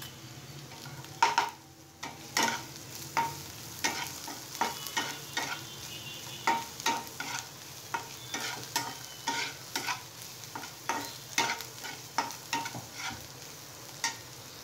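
Steel spatula scraping and knocking against a kadhai, roughly one or two strokes a second, as frying onions are stirred to mix in freshly added turmeric and asafoetida, over the sizzle of the frying. The loudest knock comes about a second in.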